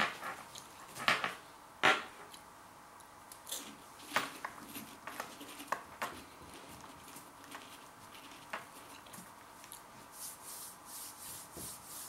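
Herr's jalapeño cheese curls being bitten and chewed: a few sharp, irregular crunches in the first six seconds, then softer, scattered chewing sounds.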